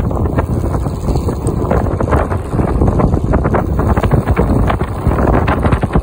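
Electric skateboard riding on asphalt: a loud rumble of wheels and motor with wind buffeting the microphone, and many rapid irregular clicks through it. This is the weird motor sound the rider is testing.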